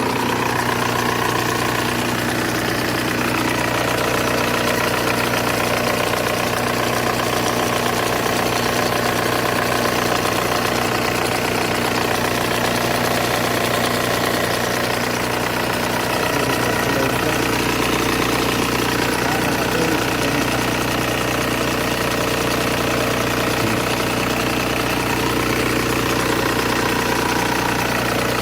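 Volkswagen Golf 1.9 TDI four-cylinder turbodiesel idling steadily, with a mechanical noise from the power steering pump, whose shaft has too much play.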